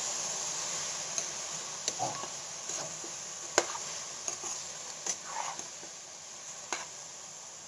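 Raw chicken pieces sizzling in a hot wok as they are stirred with a spoon, with occasional sharp clicks of the spoon striking the pan. The sizzle slowly fades.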